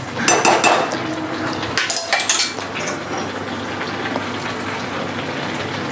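Steel spoon scraping and stirring grated carrots in a metal pan for the first two seconds or so, then a steady frying hiss from the pan as the sugared carrots cook and give off liquid.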